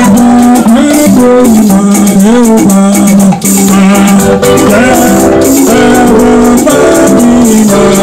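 Loud music: voices singing over a steadily shaken rattle and other instruments.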